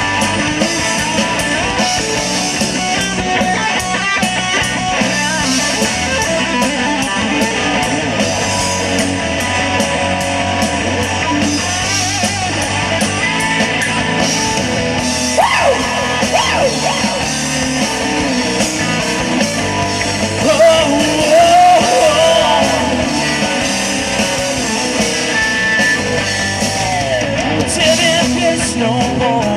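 Hard rock band playing live: electric guitar, bass guitar and drum kit. A lead line slides in pitch about halfway through and again a few seconds later.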